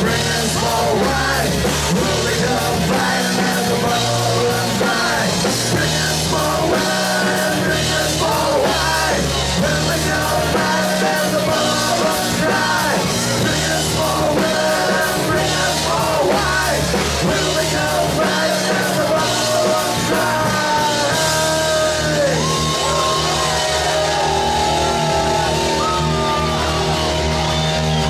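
Live heavy metal band playing loud and steady: electric guitars, bass guitar and a drum kit, with a singer yelling into the microphone.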